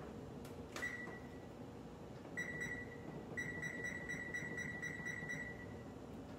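Electric oven control panel beeping as its keypad buttons are pressed: a single beep about a second in, another a little later, then a quick string of short beeps at about four a second as the bake temperature is stepped up to 400 degrees.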